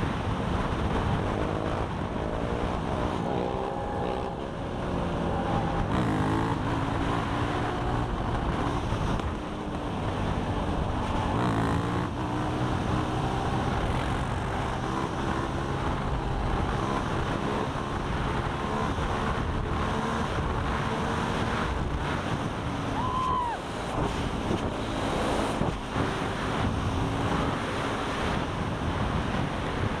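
Quad bike (ATV) engine running at road speed, its pitch rising and falling as it revs up and shifts, with wind noise buffeting the helmet-mounted camera.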